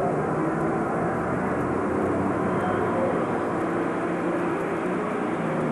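Super stock pulling tractor's turbocharged diesel engine running flat out down the track, a steady, loud drone.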